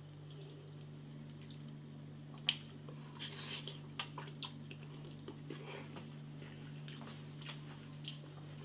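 Faint wet slurping and mouth sounds of a person eating soupy instant rice noodles, a few short smacks and clicks about two to four seconds in, over a steady low hum.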